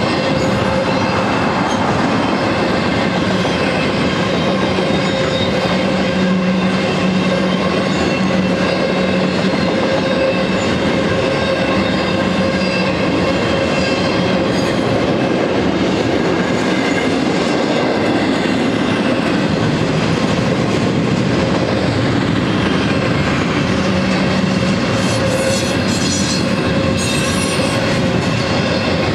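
Double-stack intermodal container cars rolling past at speed: a steady rumble and clatter of steel wheels on rail, with a steady hum running through it.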